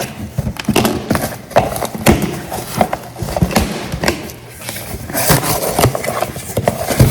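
Irregular knocks and clacks of small household items being handled and set down: bottles being tried on a bathroom caddy to see if they fit.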